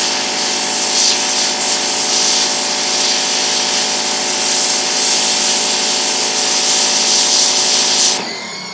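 4,200 PSI pressure washer spraying: a steady hiss of the high-pressure jet striking a pumpkin, with the washer's motor and pump running underneath. The spray cuts off suddenly near the end as the jet is shut off.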